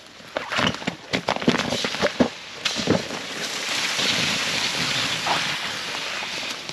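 Layflat fire hose being charged with water: crackling and popping for about the first two and a half seconds, then a steady hiss.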